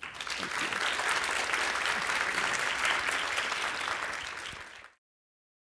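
Audience applauding. The clapping fades out and stops about five seconds in.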